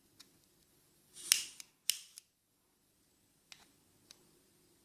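Butane jet lighter being fired: a short hiss of gas that ends in a sharp piezo igniter snap about a second in, then two more snaps and a few faint clicks. Each try comes during fine-tuning of the gas valve, to find the highest flow that still lights.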